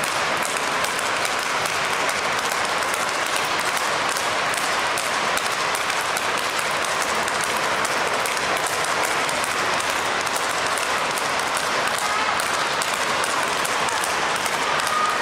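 Steady crowd clapping, mixed with quick sharp clicks of speedball rackets striking the tethered ball.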